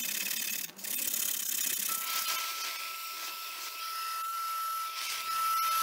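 Vacuum nozzle sucking dust off a freshly engraved MDF board: a steady airy hiss, with a high steady whine joining about two seconds in and starting to drop in pitch at the very end.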